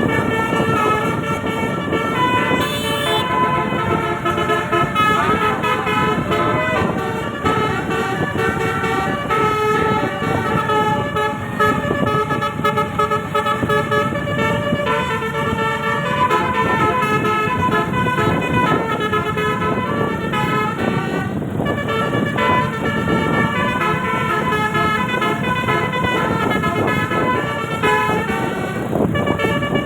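Bus telolet horn, a set of 18 roof-mounted air-horn trumpets, playing a tune of short notes that change quickly, several pitches sounding together, without a break.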